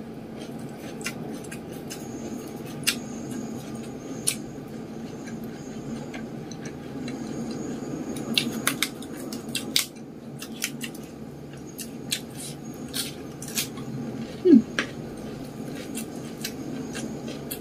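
Close-up eating sounds: many small mouth clicks and smacks from chewing rice, fried egg and fried tofu eaten by hand, and fingers working food against a stainless steel bowl, over a steady low hum. A short falling squeak stands out about fifteen seconds in.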